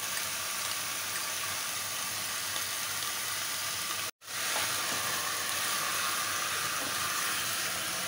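Mutton and ginger-garlic paste frying in hot oil in an aluminium pressure cooker, at the bhuna stage once the meat's own water has cooked off: a steady sizzle. The sound drops out for a moment about halfway through and comes back a little louder.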